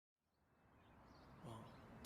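Near silence, with a faint, brief rise of low noise about one and a half seconds in.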